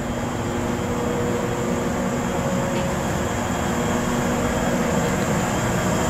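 419 series electric train standing at a platform, humming steadily with a low drone and a faint high whine, slowly getting a little louder.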